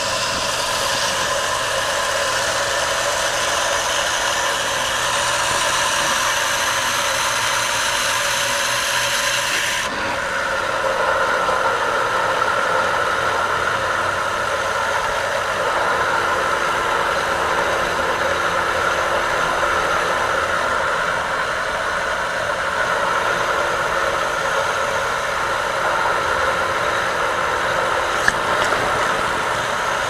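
AquaPro 1/2 HP convertible jet pump running steadily, building water pressure in its tank. About ten seconds in, a high hiss in its sound stops suddenly and the tone shifts.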